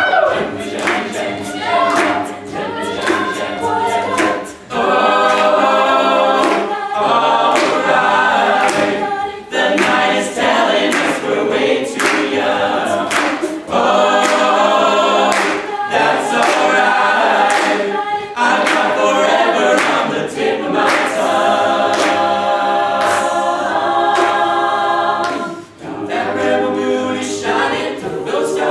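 Mixed a cappella group singing a pop-country song live, a male soloist's lead over the group's sung backing harmonies, with a steady beat of sharp percussive clicks.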